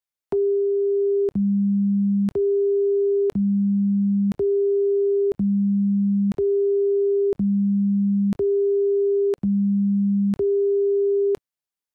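Seismograph event-detection alarm: an electronic two-tone beep that alternates a higher and a lower tone, an octave apart, each about a second long, eleven tones in all. It signals that a possible seismic event has been detected.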